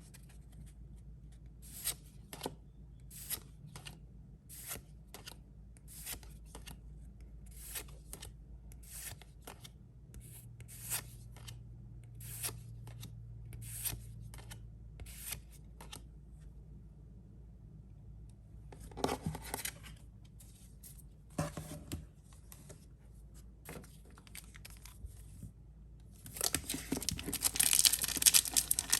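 Pokémon trading cards being slid one at a time off a stack, a short swish about one and a half times a second, then a few more at a slower pace. Near the end, a foil booster pack wrapper crinkles loudly as it is torn open.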